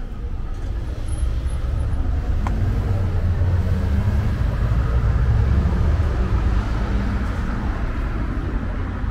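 A motor vehicle passing close by on a city street. Its low engine rumble swells from about three seconds in and eases off after about seven seconds, over steady traffic noise.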